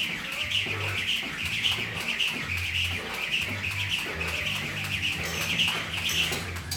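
Jump rope swishing rhythmically, about twice a second, with each turn of the rope as he skips; it stops near the end. Background music with a pulsing bass runs underneath.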